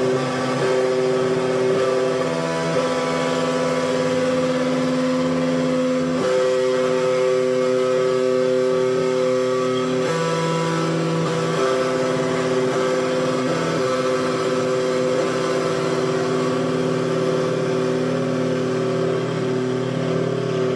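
Stratocaster-style electric guitar strumming held chords that ring steadily, with chord changes about six and ten seconds in.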